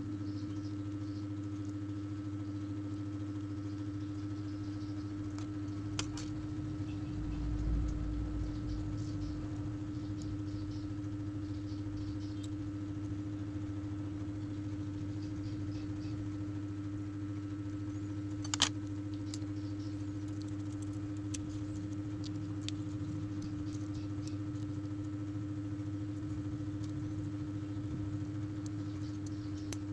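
Light clicks and taps of small phone parts and tools being handled, with one sharper click about two-thirds of the way through. A steady low hum runs underneath.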